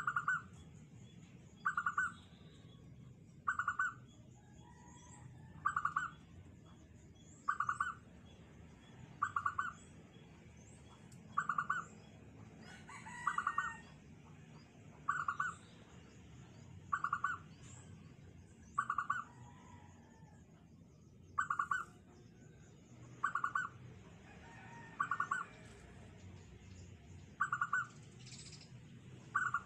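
Zebra dove (perkutut) cooing: a short rolling coo repeated at a steady pace about every two seconds, in the small, tight voice prized in a singing perkutut.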